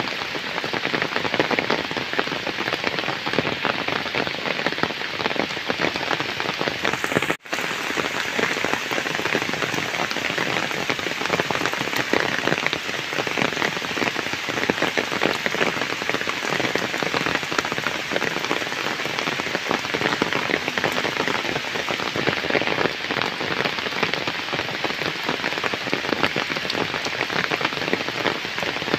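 Heavy rain pouring steadily onto flooded ground and standing puddles, a dense, even patter. The sound cuts out for an instant about seven seconds in.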